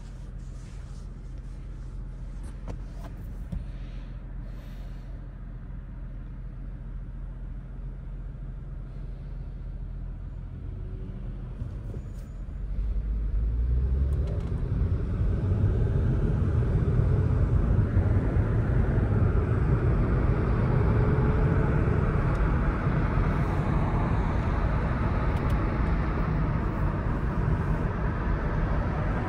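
Car engine idling, heard from inside the cabin as a steady low hum. About twelve seconds in the car pulls away: the revs rise and engine and road noise grow louder and stay up while driving.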